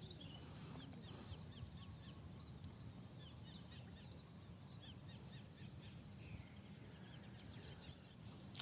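Faint outdoor ambience: small birds chirping in many short, falling notes over a steady low background rumble.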